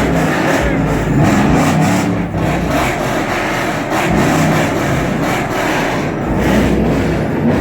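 Loud car engine and exhaust running steadily, with a deep rumble underneath.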